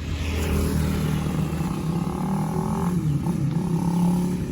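Suzuki Raider R150 Fi single-cylinder four-stroke engine running at a fairly steady low speed through an aftermarket stainless canister muffler with a Vmax elbow, its exhaust note wavering slightly in pitch about three seconds in.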